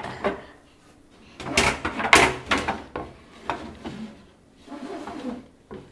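A small child banging and clattering kitchen things: a run of sharp knocks and rattles, thickest and loudest about two seconds in, with further scattered knocks after.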